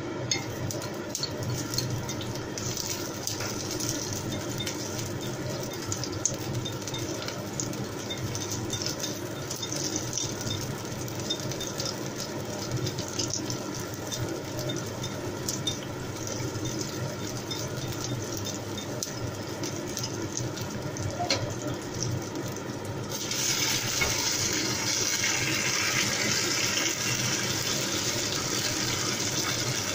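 Shallots and garlic frying in oil in a clay pot on a gas burner, with stirring chopsticks clicking now and then against the pot. About 23 seconds in, a louder, steady sizzle starts as the chicken is tipped into the hot pot.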